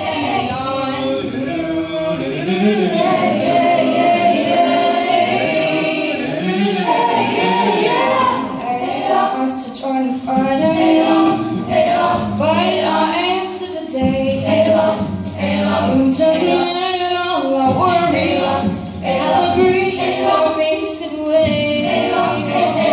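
A high school vocal ensemble singing, women's and men's voices together.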